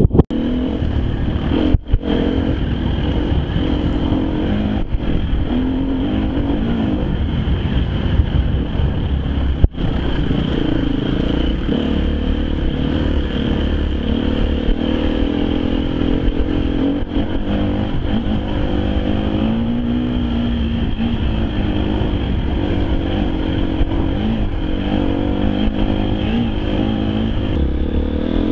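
Husqvarna FE 250 enduro motorcycle's single-cylinder four-stroke engine running under way on a dirt trail, picked up from the rider's helmet. The engine note rises and falls with the throttle throughout, with a brief drop about 2 seconds in and another about 10 seconds in.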